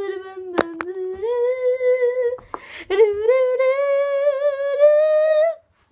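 A girl humming a sad, drawn-out tune in long held notes whose pitch edges upward, with a short breath break partway through. Two short clicks sound about half a second in.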